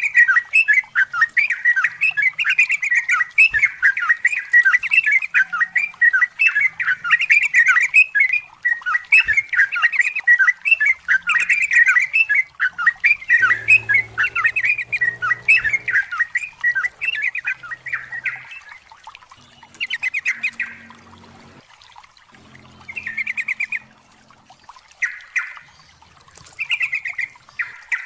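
Yellow-vented bulbul (trucukan) singing a long run of rapid, chattering bubbly notes. The run thins out after about two-thirds of the way into separate short phrases with pauses between.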